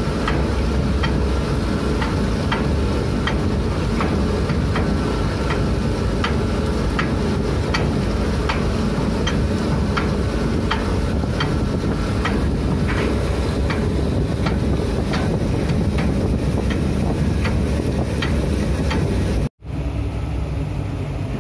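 Ship's anchor windlass running, with a steady machinery rumble and a sharp click about every 0.7 s as the anchor chain links pass over the gypsy. The sound breaks off abruptly near the end.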